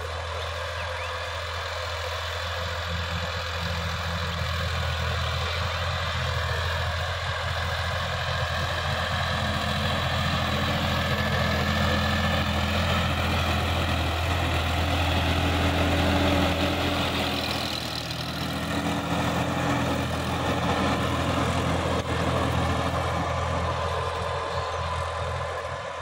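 Sonalika tractor's diesel engine running steadily under load while it pulls a tillage implement through the soil. The engine grows louder as the tractor passes close about halfway through, then eases as it moves away.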